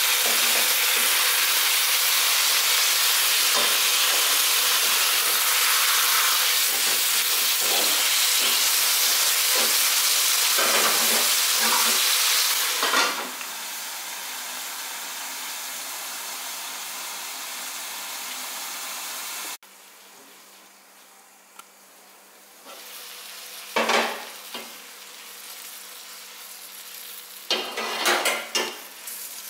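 Whole chicken sizzling in olive oil in a metal pot, with metal tongs clicking and scraping against it. About thirteen seconds in a clank comes and the sizzle turns quieter and muffled. Near the end there are a few sharp clanks of tongs on the pot.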